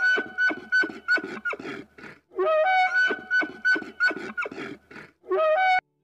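Bull elk bugling: a high, whistling note that rises and is held, then breaks into a run of short grunting chuckles. It comes twice, and a third call starts near the end.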